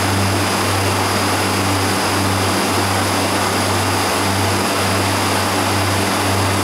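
Milk-tank refrigeration condensing unit running: a Bristol hermetic compressor gives a steady low hum that wavers slightly, over the rush of air from its condenser fan. It is pumping down after the tank has been switched off.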